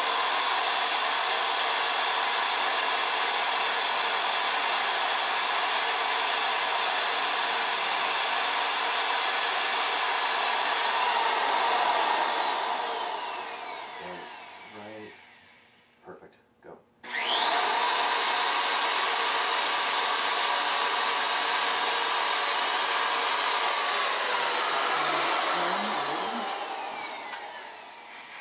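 Corded electric drill boring holes through a visor mold. The motor spins up and runs steadily for about twelve seconds, then winds down with a falling whine. After a short pause it spins up again for a second run of about eight seconds and winds down.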